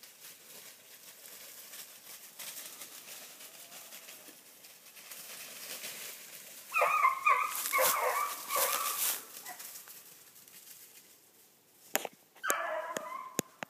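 Beagles baying in a run of pitched calls about seven seconds in and again near the end, as hounds give voice while running a rabbit. A few sharp clicks come just before the second calls.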